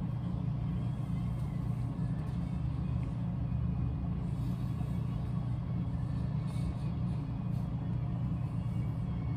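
Steady low rumbling hum, with a person chewing food and a few faint ticks now and then.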